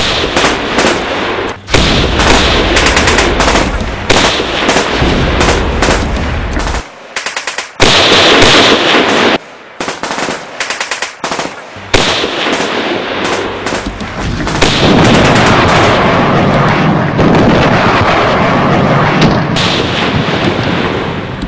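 Battle gunfire: dense, rapid machine-gun bursts and rifle shots, very loud. It drops away briefly about seven seconds in and again around ten seconds, then builds back to heavy fire.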